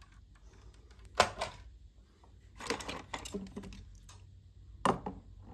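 Toy vehicles knocking and clattering against each other as they are handled in a bin of toys: a sharp knock about a second in, a short run of clatter around the middle, and another sharp knock near the end.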